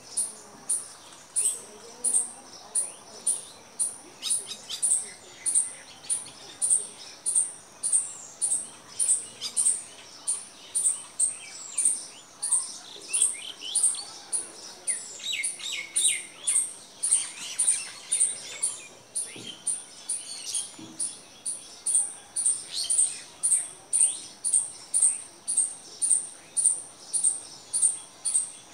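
Birds chirping outdoors: one high, sharp chirp repeats steadily a little under twice a second throughout, while other birds add quick falling calls, busiest in the middle.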